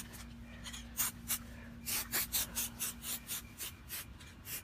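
Dry leaves, grass and a cloth drop sheet rustling and crinkling as they are handled, a dozen or so short, scratchy sounds at irregular intervals.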